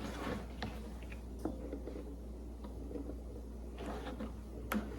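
Faint handling noises from a homemade puzzle box being turned over and examined: scattered small clicks and taps, with one sharper click near the end.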